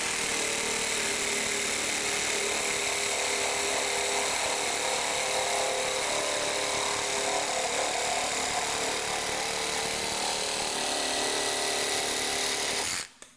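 DeWalt 12V brushless one-handed reciprocating saw with an 18 TPI blade running steadily as it cuts through 3-inch PVC pipe, stopping suddenly near the end.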